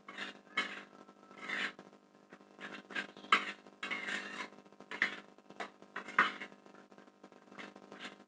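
Spatula scraping and stirring fried rice around a pan, in irregular strokes about once or twice a second.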